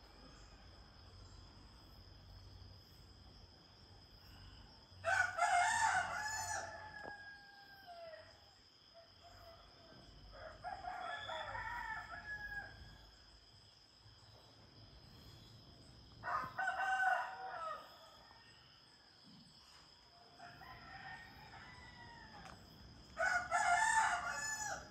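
Roosters crowing, five crows in turn a few seconds apart, some loud and some fainter, over a steady high whine.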